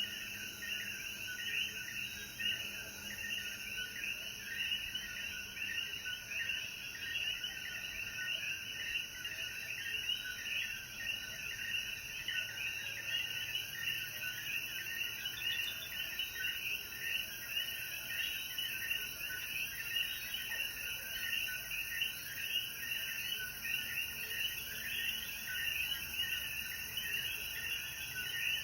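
Chorus of many common coquí frogs calling over one another, a dense, unbroken mass of short repeated high notes, with a steady high hiss above it.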